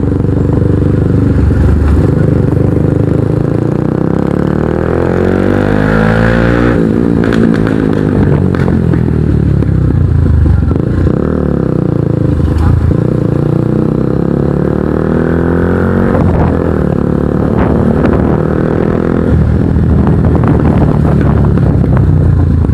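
Kawasaki NS150 motorcycle with an Akrapovic exhaust being ridden: engine pitch climbs under acceleration for several seconds, drops about seven seconds in, then runs steadier. Heavy wind buffeting on the microphone partly masks the exhaust.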